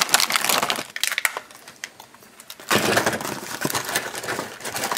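Plastic toy packaging crackling and crunching as a Shopkins blister pack is torn open, in two spells with a quieter gap between.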